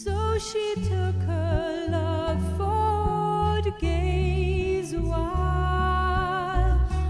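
Music: a slow song with a wavering, vibrato melody line held over steady bass notes.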